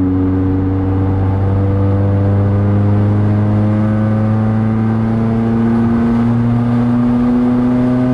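Scion tC's four-cylinder engine running loud through a TRD exhaust with the resonator deleted, heard from inside the cabin while driving. The drone holds steady with its pitch climbing slowly as the revs rise.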